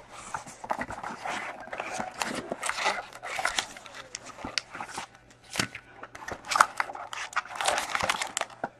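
Foil-wrapped trading-card packs crinkling and rustling as they are pulled by hand out of a cardboard hobby box, with irregular scrapes and taps of the cardboard.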